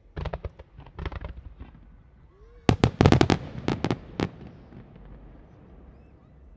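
Fireworks going off in quick volleys of sharp cracks and pops. There is a short cluster near the start and another about a second in, then the loudest, densest run of crackling from just under three seconds to just past four seconds in.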